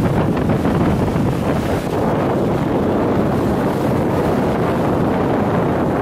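Small waves breaking and washing up the sand, mixed with wind buffeting the microphone as a steady low rumble.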